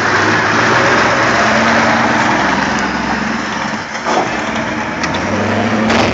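Scania R620's V8 diesel engine running loud and steady as the tractor-trailer drives slowly past and pulls away.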